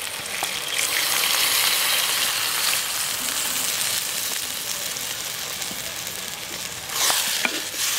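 Water poured into a hot clay cooking pot of fried onion, tomato and spice masala, hissing and sizzling as it hits. The sizzle swells about a second in, is loudest for a couple of seconds, then slowly dies down, with a brief louder rasp near the end.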